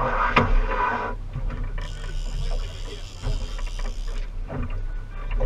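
Boat engine running with a steady low hum under wind and water hiss. A louder rush of noise comes in the first second, and a few light clicks are scattered through.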